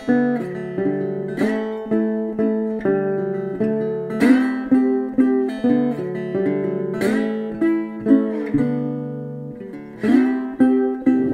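Background music on acoustic guitar: plucked notes and strummed chords that ring and fade, with a new note or chord about every second.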